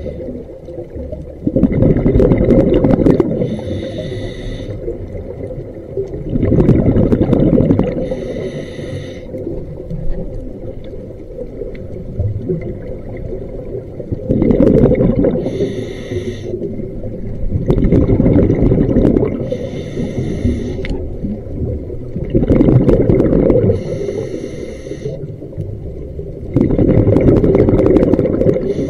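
Scuba diver breathing through a regulator underwater: about six breaths, each a loud burst of exhaled bubbles rumbling past the camera followed by a shorter hiss of air through the regulator, with quieter gaps between.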